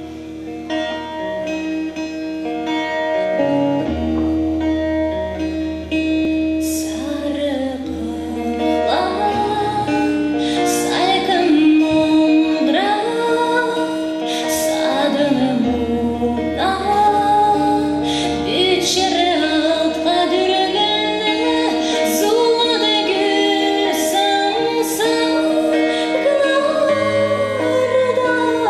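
A woman singing a Kalmyk-language song, her voice coming in about seven seconds in, over an accompaniment of held chords and low bass notes with a 12-string acoustic guitar.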